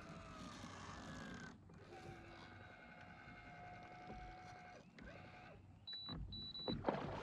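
A small mechanism whirring: a pitched whine that sinks a little for about a second and a half, then a steady whir for about three seconds and a brief one after. A few short high electronic beeps follow near the end, then a loud clatter.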